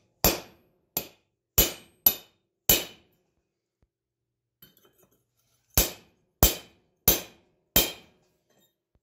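Blacksmith's hammer striking steel with a bright, ringing clang: five blows in quick succession, a pause, then four more. The blows drive a round punch through hot steel to knock the punched plug out.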